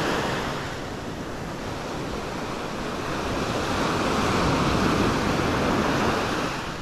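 Ocean surf breaking and washing up a sandy beach: a steady rushing wash that dips about a second in, swells to its loudest around four to five seconds in, then eases.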